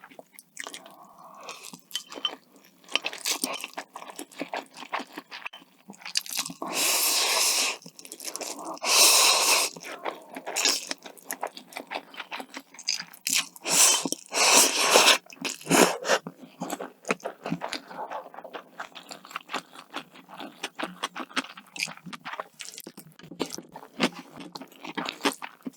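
Close-miked eating: steady crunching and chewing of food, broken by a few louder, longer hissing stretches about seven, nine and fourteen seconds in.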